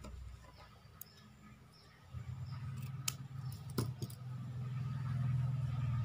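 A low, steady motor-like drone comes in about two seconds in and grows louder, with a few sharp small clicks around the middle.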